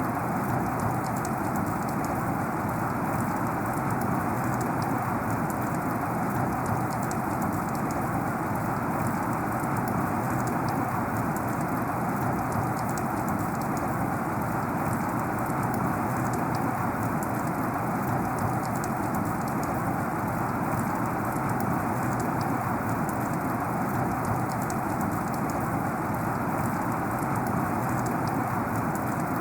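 Heavy rain falling steadily, a dense, even hiss of drops with fine individual patters on top.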